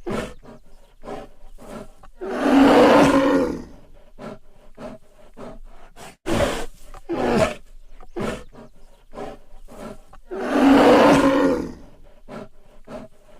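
Black bear roaring: two long, loud roars, one about two seconds in and another near the end, with shorter grunts and a run of short huffs between them.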